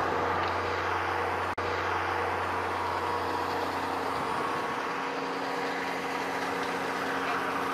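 Claas Mercator 75 combine harvester running steadily, a constant engine and machinery hum with no change in speed. The sound drops out for an instant about one and a half seconds in.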